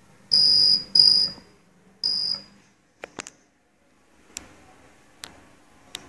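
Lift call button beeping three times as it is pressed: a high, steady electronic tone, each beep about half a second long. A few sharp clicks follow.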